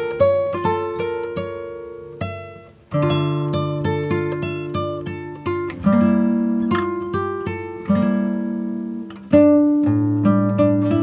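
Background music: a plucked-string piece, its notes picked one after another and left to ring.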